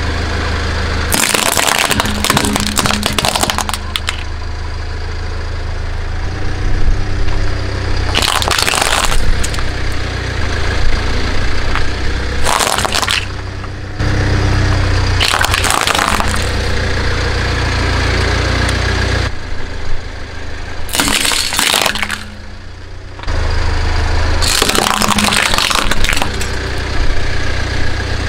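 A car tyre rolling over and crushing crunchy objects: about six loud crackling crunches, each a second or two long, over the steady low hum of the car's engine.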